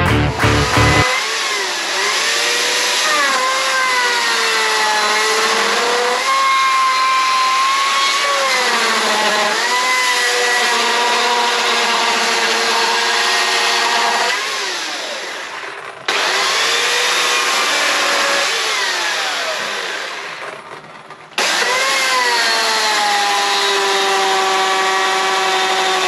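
Chainsaw carving into a wooden log, its motor pitch rising and sagging as the chain bites and frees in the wood. The sound breaks off and resumes abruptly twice in the second half.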